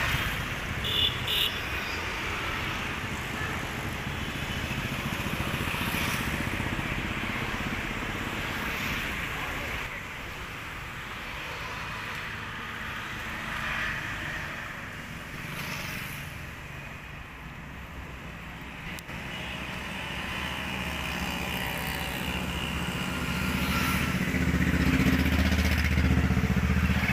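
Street traffic on a busy city road: cars and motor scooters passing, with two short high beeps about a second in and a louder engine running close by near the end.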